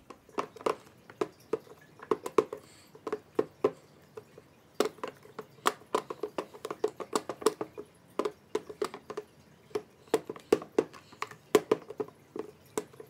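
Wooden spoon stirring a thick foamy mix of shaving cream and PVA glue in a plastic tub: a rapid, irregular run of short clicks, several a second.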